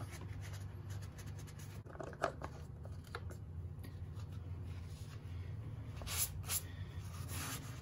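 Shop towel rubbing over an engine valve cover as spilled oil is wiped up, with a few light clicks and knocks as the plastic funnel is lifted out of the oil filler. A steady low hum runs underneath.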